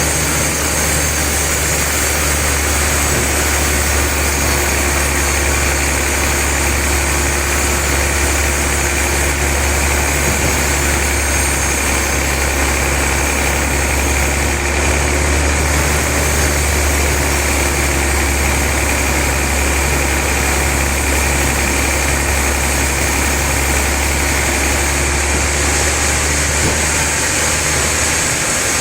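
Sawmill log saw running steadily while sawing a trembesi (rain tree) log, with a constant low hum and a steady high hiss.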